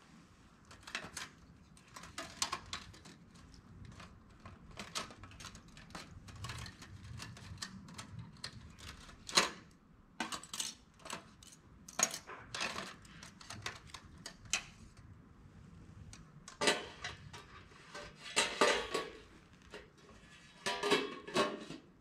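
Metal surgical instruments clinking and rattling against a metal instrument tray, a scatter of sharp clicks with two busier bursts of rattling near the end.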